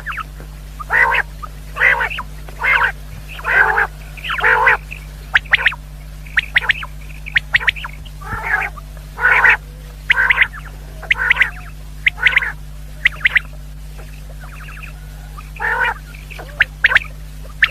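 Common quail calling: a run of short, harsh, rasping notes about one a second, mixed with thinner, sharp, high notes, with a brief lull a little past the middle. A steady low electrical hum runs underneath.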